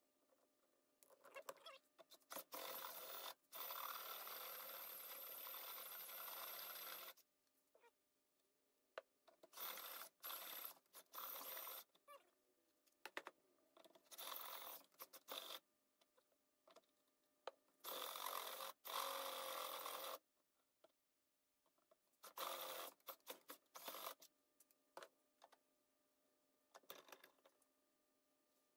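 Handheld electric drill with a step drill bit cutting holes through small spacer pieces, run in about six bursts of one to four seconds each, with short clicks and handling noises between.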